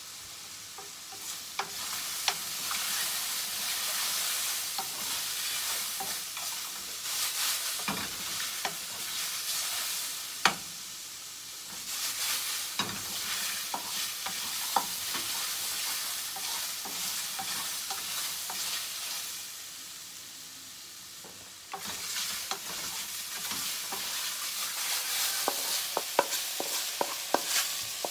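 Sliced mushrooms sizzling in a frying pan while a wooden spatula stirs them, knocking against the pan. The sizzle dips about three-quarters of the way through, then comes back suddenly with a quick run of clicks near the end.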